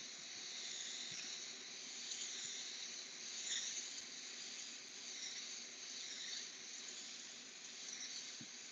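Iwata Eclipse airbrush spraying, a faint steady hiss of air and paint from the nozzle as light shading is laid on.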